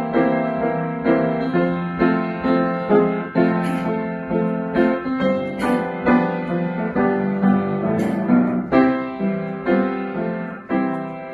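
Piano playing a song introduction: a steady rhythmic run of struck chords and melody notes, each ringing and fading.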